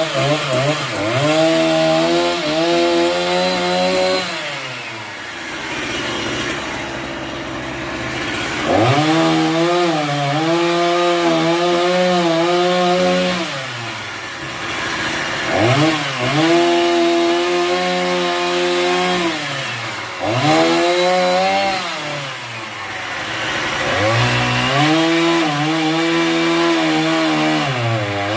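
Two-stroke chainsaw cutting a tree, the engine held at high revs for a few seconds at a time, then dropping back and revving up again, over and over.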